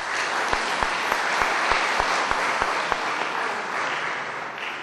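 Audience applauding: dense, even clapping that fades near the end. During the first three seconds, regular low knocks come about three a second close to the microphone.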